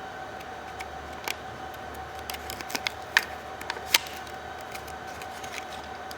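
Scattered small clicks and taps of hands handling a laptop and its parts, the two loudest about three and four seconds in, over a steady electrical hum.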